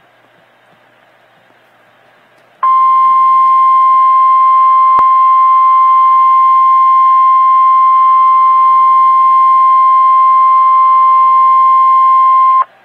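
National Weather Service alert tone on an Emergency Alert System broadcast: one steady tone near 1050 Hz. It starts about two and a half seconds in, holds for about ten seconds, then cuts off suddenly. It is the alarm that comes just before a spoken severe thunderstorm warning.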